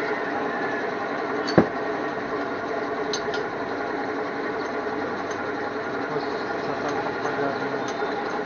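Steady mechanical drone of a running machine, with one sharp click about one and a half seconds in and a few faint ticks.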